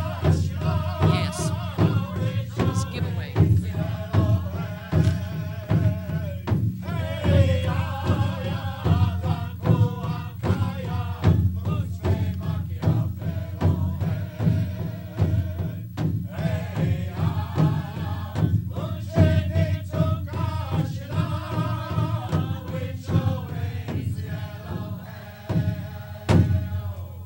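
Native American drum group singing in chorus with a steady beat struck on a large shared powwow drum; the song ends near the end.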